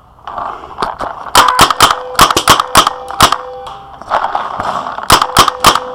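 Paintball guns firing in quick volleys of sharp pops, a rapid string of about a dozen shots and then a shorter burst of several more near the end, with a thin steady hum running beneath them.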